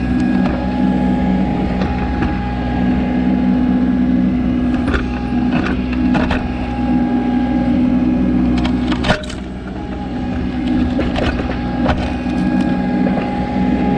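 Kubota B2650 tractor's three-cylinder diesel engine running steadily under load while the backhoe works a stump, with a string of woody cracks and snaps as roots break; the loudest snap comes a little past the middle, and the engine drops in level just after it.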